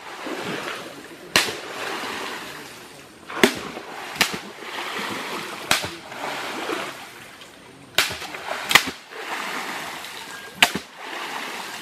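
A long wooden pole smacking the surface of a muddy creek, seven sharp slaps at uneven intervals, each throwing up a short hiss of splashing spray.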